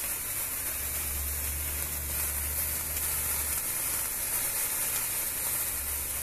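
Leegendary Fireworks fountain spraying sparks with a steady hiss, and a low rumble underneath from about a second in until past three seconds.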